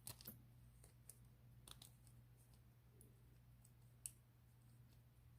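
Faint, scattered clicks of a lock pick and tension wrench working the pin tumblers of a vintage Ilco half-ball padlock held in the hand, with a sharper click about four seconds in.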